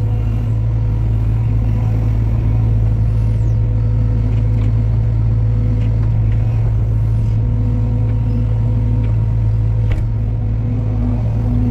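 Heavy machine's engine running steadily at a constant speed, a deep even hum with a few faint ticks over it.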